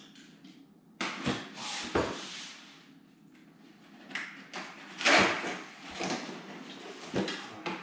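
Cardboard Funko Pop! boxes being handled and pulled out of a shipping case: rustling and scraping that starts suddenly about a second in, with several knocks, the loudest about five seconds in.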